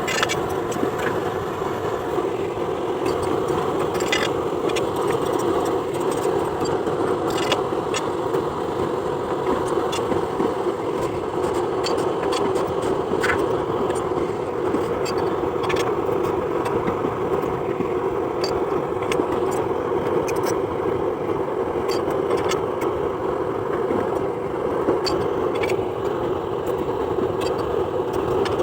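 A steady mechanical running hum, like an engine or motor, with scattered light clicks throughout.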